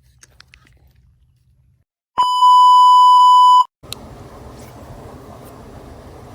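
A loud, single steady high-pitched bleep tone, like an edited-in censor beep, lasting about a second and a half from about two seconds in, then cutting off sharply. Right after it a steady rumbling noise starts.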